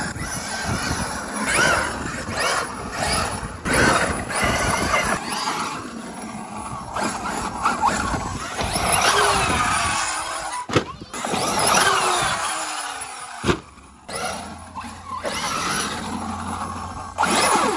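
Losi 5ive-T 1/5-scale RC truck's small two-stroke gas engine revving up and down as it drives, its pitch rising and falling again and again. The sound breaks off abruptly a few times.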